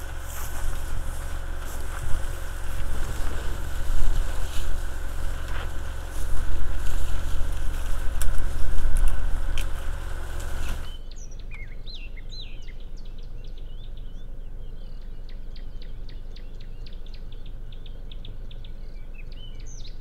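Steady low rumble of an idling vehicle engine with some wind noise, which stops abruptly about eleven seconds in. After that, birds chirp over a quieter background with fine, rapid ticking.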